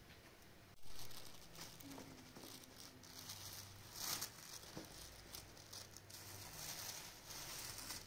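Thin plastic bag crinkling and rustling as fresh damask rose petals are shaken out of it onto a cloth, with the light patter of petals dropping.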